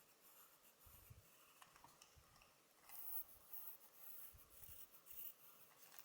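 Faint scratching of a pencil sketching short strokes on paper, with several quick strokes in the second half.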